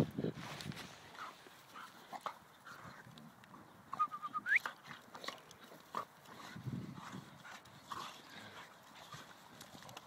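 An Alapaha bulldog and a blue Staffordshire bull terrier play-fighting: scattered scuffling and low noises from the dogs. About four seconds in there is a brief high squeak that rises in pitch.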